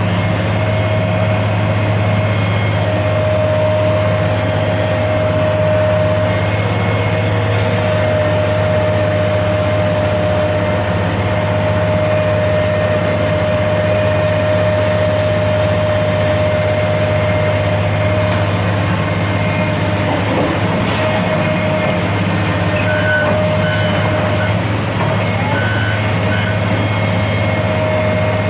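Diesel engine of heavy construction machinery running steadily, a low drone with a steady higher tone over it.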